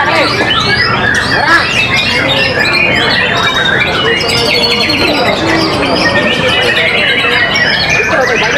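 White-rumped shama singing a fast, varied stream of whistles, trills and chattering notes, with other birds singing over it so that the calls overlap without a break.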